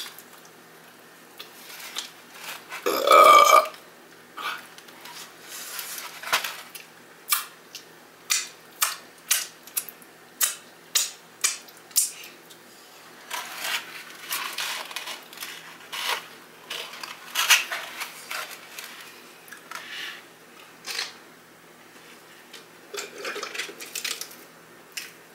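A loud burp lasting about a second, about three seconds in. Then close-miked eating of crunchy fried chicken: many short sharp crunches and mouth clicks, and a sip through a straw near the end.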